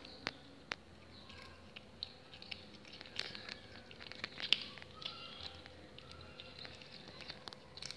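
Kitten chewing and crunching on small pieces of bone, with irregular sharp crunches, the loudest about halfway through.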